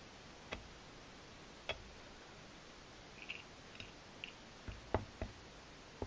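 Kitchen knife knocking and tapping on a plastic cutting board while a small largemouth bass is gutted: a few sharp knocks about a second apart, faint small ticks in the middle, then three quicker knocks near the end.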